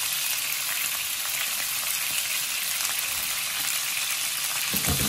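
Cubes of soy-marinated pork belly sizzling and crackling steadily in hot oil in a wok as they brown. A few low knocks come near the end.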